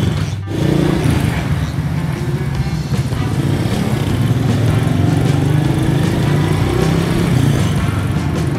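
Small motorbike engine running as the bike pulls away and rides along a street, with background music laid over it.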